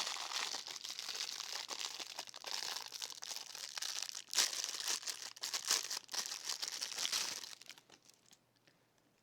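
Small plastic packaging bag crinkling and crackling as it is handled, dense and irregular with sharp crackles, dying away about a second and a half before the end.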